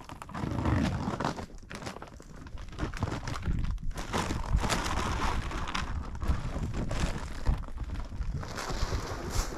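Irregular crinkling and rustling of a plastic bag being handled, with scattered clicks and knocks.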